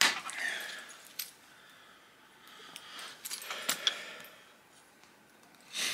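Flintknapping a round stone biface on a leather leg pad: sharp stone clicks and short scrapes as flakes are pressed off its edge. There is a loud click at the very start, a cluster of clicks a little past the middle, and another click near the end.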